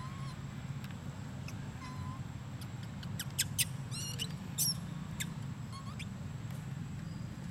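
Young macaque squeaking: a quick cluster of five or six short, high-pitched squeaks about halfway through, with a couple of fainter calls earlier. A steady low hum runs underneath.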